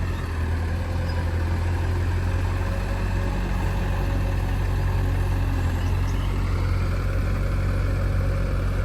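Heavy diesel machinery engine running steadily with a deep hum, its pitch lifting slightly about halfway through.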